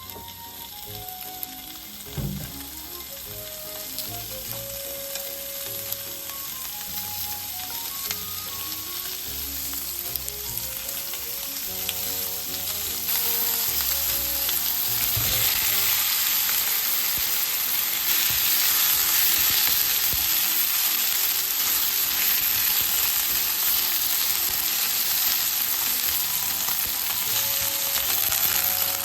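Food sizzling in a frying pan, the hiss building over the first dozen seconds and then holding steady and louder. There is a low knock about two seconds in and another about halfway through.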